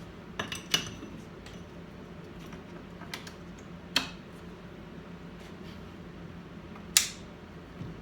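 A few scattered sharp clicks and taps of small hard objects, two close together near the start, single ones about three and four seconds in, and the loudest about seven seconds in, over a steady low hum.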